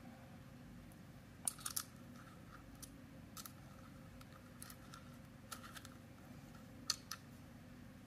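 A dozen or so faint, scattered clicks and scrapes of a small metal key turning the slotted mounting screw of an Insta360 quick-release mount, tightening it into the camera; the sharpest click comes near the end.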